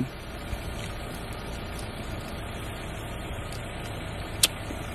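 Steady low rumble of a vehicle engine idling, with one sharp click near the end.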